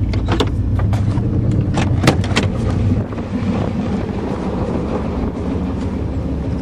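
A 1988 Chevrolet pickup's engine idling steadily, with several sharp clicks and knocks in the first half of the clip. The engine is burning oil heavily, and the owner suspects a plugged catalytic converter.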